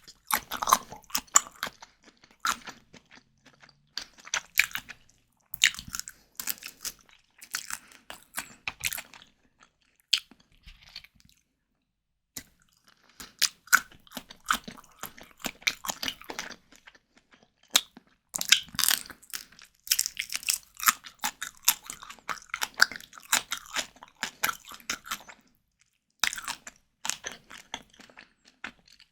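Close-miked chewing and biting of white tiger prawns, wet crunchy mouth sounds coming in runs with short pauses.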